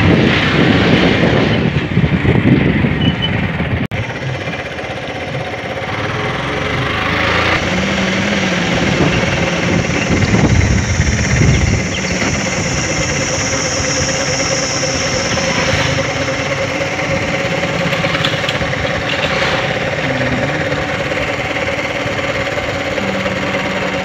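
Motorcycle engine running steadily as the bike is ridden along a road, with road and wind noise.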